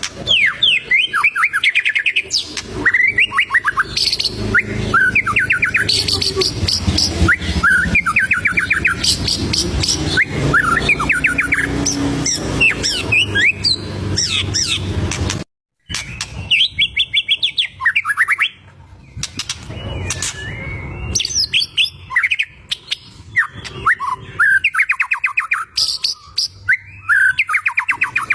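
White-rumped shama (murai batu) singing continuously: fast runs of rapid notes and varied whistled phrases, with a brief gap about halfway through.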